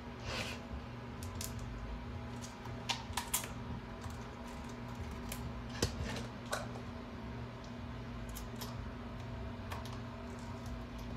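A dog crunching raw celery sticks, chewing and biting in irregular crisp crunches and snaps, a few louder ones around three seconds and six seconds in.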